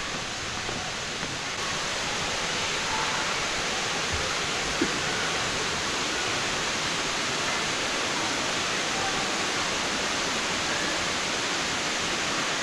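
Waterfall: a steady rush of falling water, with a single light click about five seconds in.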